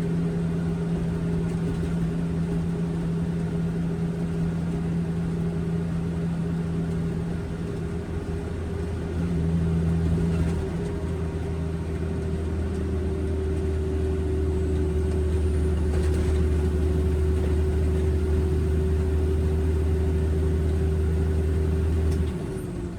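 Concrete mixer truck's diesel engine running under way, a steady low drone with road noise that swells briefly about ten seconds in and drops away just before the end.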